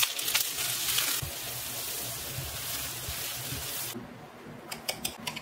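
Kitchen tap running with an even hiss, shut off abruptly about four seconds in, with light clicks and clatter before and after.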